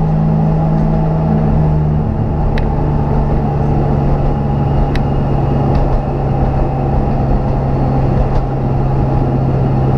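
Race car engine heard from inside its stripped, roll-caged cabin, running at steady low revs while the car is driven slowly. The engine note drops a little about two seconds in, with a few light clicks along the way.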